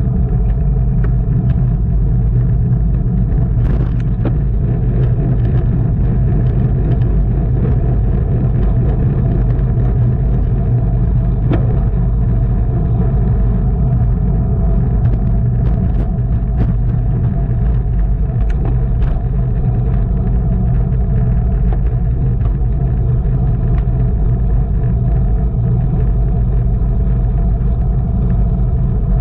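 Steady, loud wind rumble buffeting a camera microphone carried along at bicycle race speed, with a few faint clicks scattered through it.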